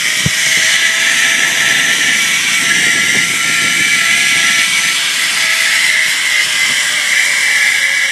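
Zip-line trolley running along the steel cable: a steady whirring hiss with a faint tone that sinks slowly in pitch as the trolley slows toward the landing platform. A few light knocks near the start.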